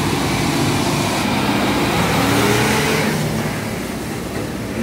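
A large truck's engine running as the truck pulls slowly past close by. It grows louder to a peak about halfway through, then fades.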